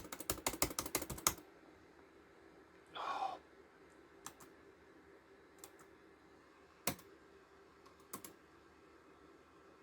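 Typing on a computer keyboard: a quick run of key presses for about the first second and a half, then a few single key taps spaced out over the rest.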